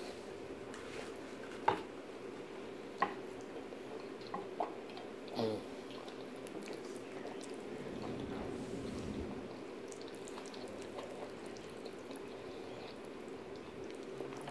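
Fork clicking against a plate a few times in the first several seconds, with quiet wet chewing sounds of pasta being eaten, over the steady hum of an electric fan.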